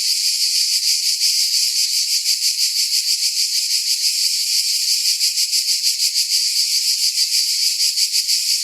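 Mediterranean cicadas singing in a continuous high, shrill buzz that pulses rapidly and evenly.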